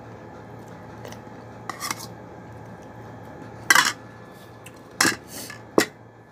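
A metal spoon knocking and scraping against a bowl while eating, a few separate clinks, the loudest about halfway through, over a faint steady hum.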